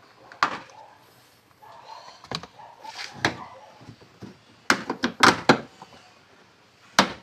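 Plastic door-sill and pillar trim of a Suzuki Alto 800 being handled and worked loose by hand. It gives scattered sharp clicks and knocks, with a cluster of loud ones about five seconds in and another near the end.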